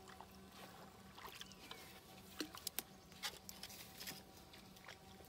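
Quiet water sounds at a canoe's side: small splashes and drips with a scattering of light knocks and taps, a few sharper ones a little past the middle, as a wooden stake is worked in the shallow water.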